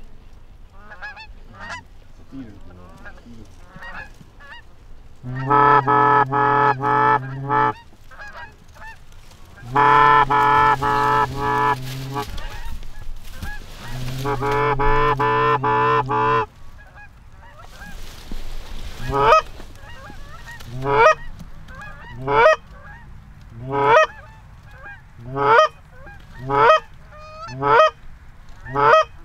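Canada geese honking as a flock circles overhead, answered by hunters' goose calls. Three loud stretches of fast, dense clucking and growling calls fall in the first half, then single honks about every second and a half.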